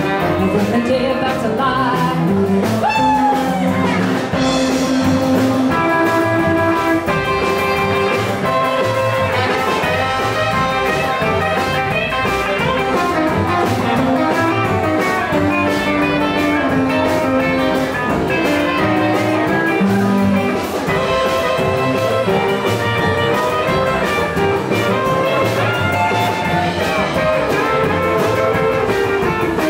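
Live blues band playing an instrumental break: electric guitar, saxophone, drums and upright bass, with a steady beat.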